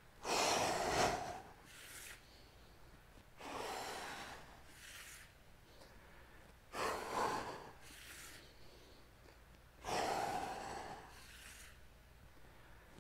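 A man's heavy breathing under exertion during plank rotations: four forceful exhales about three seconds apart, each followed by a shorter, softer breath.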